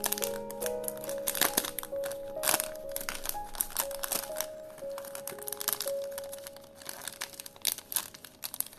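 Thin clear plastic bag crinkling and crackling as it is pulled open and handled by fingers, with instrumental background music.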